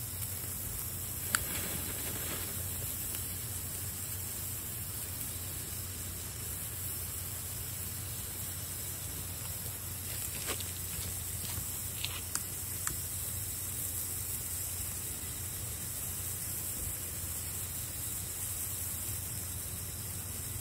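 Small handheld fireworks burning with a steady fizzing hiss. A few sharp crackles break through, one about a second in and several between ten and thirteen seconds in.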